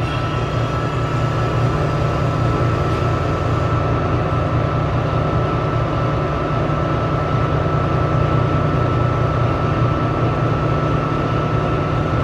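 A 15 HP Dantco bow-tie mixer running in its lifted position: a steady low hum with a thin, constant whine over it.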